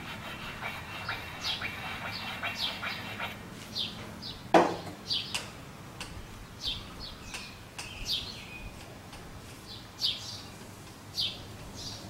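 A small bird chirping over and over: short, high notes that slide downward, about one a second, with one louder sweep about four and a half seconds in. Light clicks and taps of metal parts being handled in the first few seconds.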